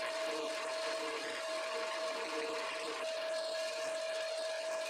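Wood lathe running steadily with a constant motor hum, while a hand chisel cuts the spinning beech blank with a steady hiss.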